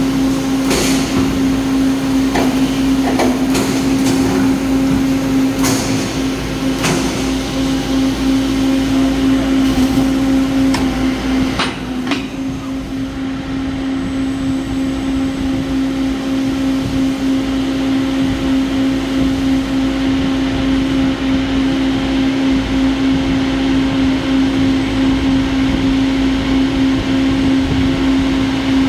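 Peddinghaus PCD-1100/3C CNC beam drill line running, with a steady mechanical hum throughout. Several sharp metallic clanks and knocks come in the first half, then the hum carries on alone.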